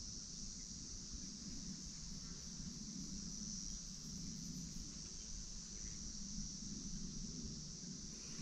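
A steady, high-pitched chorus of insects, unbroken throughout, with a low rumble underneath.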